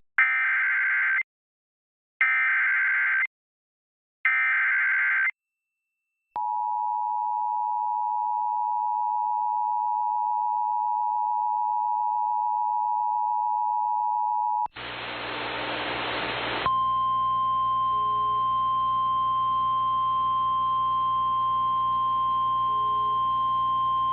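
Emergency Alert System activation for a flash flood warning: three short bursts of buzzing SAME header data, then the two-tone EAS attention signal held steadily for about eight seconds. After a burst of static, a single steady tone sounds over a faint hum: the NOAA Weather Radio 1050 Hz warning alarm tone.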